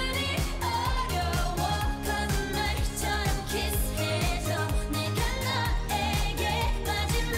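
K-pop song playing: sung vocals over a steady electronic beat.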